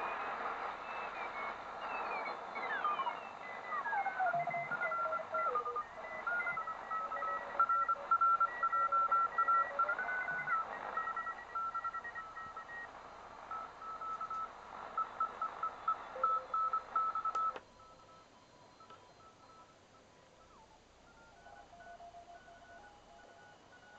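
Morse code (CW) signals on the 40-metre amateur band heard through a Tecsun PL-660 shortwave receiver: several keyed beeping tones at different pitches over band noise. A few tones slide down in pitch in the first seconds. About 17 seconds in, the whole sound drops much quieter, and faint beeps carry on.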